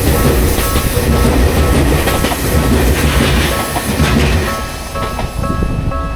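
A Tokyu electric commuter train passing over a level crossing, its wheels clattering over the rail joints. The crossing's electronic warning bell rings steadily underneath and comes through clearly again near the end as the train noise drops.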